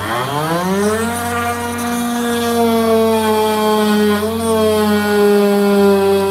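Milwaukee M18 cordless oscillating multi-tool with a cold knife blade starting up, its pitch rising over the first second, then running steadily as the blade cuts through the polyurethane bond around a car's panoramic roof glass. A small dip in pitch comes about four seconds in.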